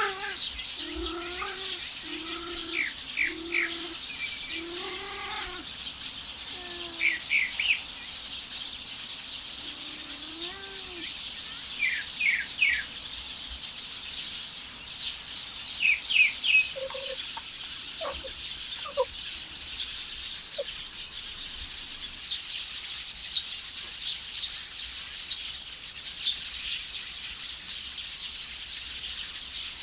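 Birds chirping in short quick series over a steady high hiss. In the first few seconds a cat yowls in a run of short wavering calls, with one more call about ten seconds in.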